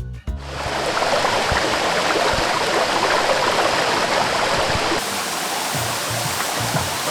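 Mountain stream rushing and splashing over rocks in a steady hiss of flowing water.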